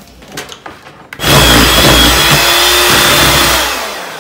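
Electric hand mixer switching on about a second in and running steadily, beating eggs and vanilla into creamed butter and brown sugar, then fading out near the end. A few light clinks come before it starts.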